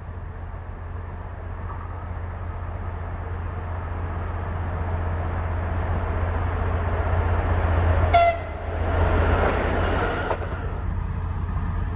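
TEP70BS diesel locomotive approaching with its train, the engine and running noise growing steadily louder. About eight seconds in comes a very short blast of its horn, then the loud rush of the locomotive passing close by, which falls away abruptly near the end.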